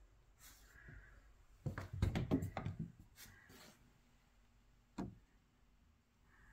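A door being opened: a quick rattle of knocks and clicks about two seconds in, then a single click about three seconds later, all fairly faint.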